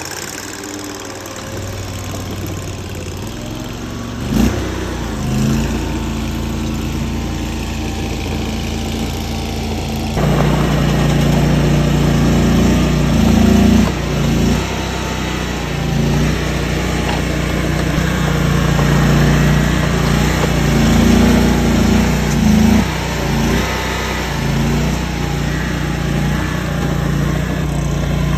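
Tracked mini skid steer's engine running steadily, stepping up louder about ten seconds in, with a single knock about four seconds in.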